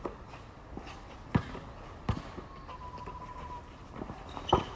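A basketball bouncing on an outdoor hard court: four separate thuds at uneven intervals, not a steady dribble.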